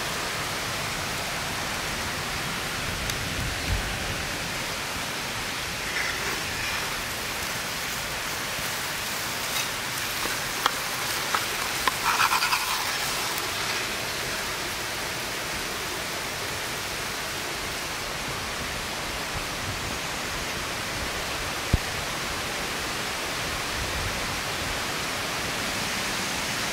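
Wood fire burning in a stone oven: a steady rushing hiss with a few sharp pops and crackles.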